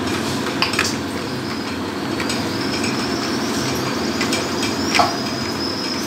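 Mustard oil sizzling steadily in a kadai with nigella seeds and green chilli frying in it, with a few light clicks of fingers against a steel bowl as mustard paste and ground spices are mixed with water.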